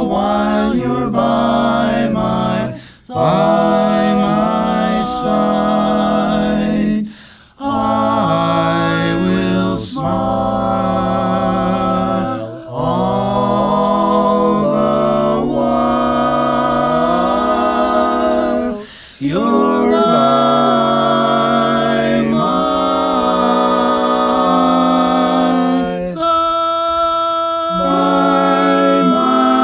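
A male barbershop quartet sings a cappella in close four-part harmony, holding long chords with short breath breaks between phrases. Near the end one high voice holds a note alone for a moment before the other voices come back in on the chord.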